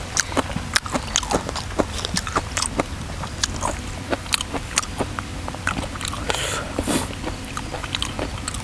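Close-miked chewing and biting of raw shrimp: an irregular run of wet clicks and smacks, several a second.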